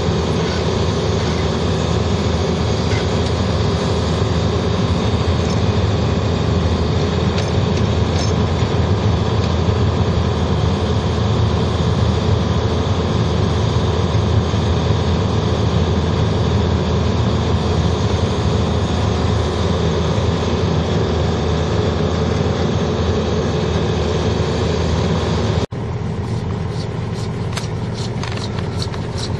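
Caterpillar mini excavator's diesel engine running steadily while its boom and bucket dig. About 26 seconds in it gives way to quieter scraping and clicking.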